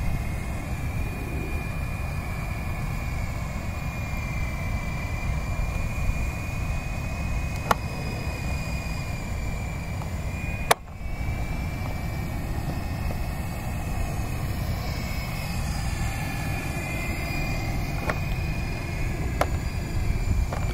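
Radio-controlled coaxial helicopter's small electric motors whining in flight, the pitch wavering up and down as the throttle changes, over a steady low rumble. A sharp click sounds about halfway through.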